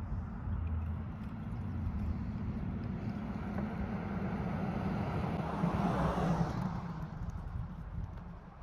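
Outdoor street ambience with a low steady rumble; a passing car swells and fades about six seconds in.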